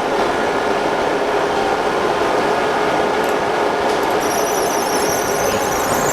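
Laser back-glass separator machine running, a steady mechanical hum with a high-pitched whine that starts about four seconds in.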